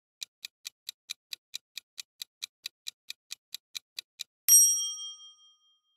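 Countdown clock-ticking sound effect, a little over four ticks a second for about four seconds, then a single bell ding that rings out for about a second, marking time up.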